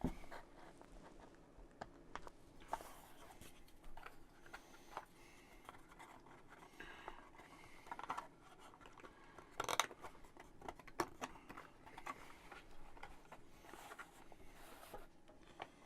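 Faint scratching and scraping with scattered light clicks and taps, and one sharper click about ten seconds in: pieces of a laser-cut MDF terrain kit being handled and fitted together.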